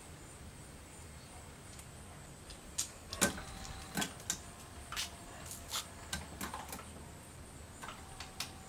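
Electric drive motors of a robot arm's cable-drum joints running as the arm lowers and raises, with a faint motor whine and a series of sharp mechanical clicks and clunks from about three seconds in.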